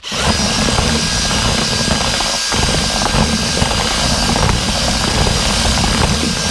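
Electric drill driving a whisk-type groundbait mixer, running at speed and churning wet groundbait in a plastic bucket. It starts abruptly, with a brief dip about two and a half seconds in.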